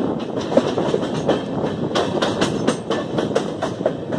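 Passenger train coaches' wheels clattering along the rails: many sharp, irregular clacks over a steady running rumble, heard from the open door of the moving train.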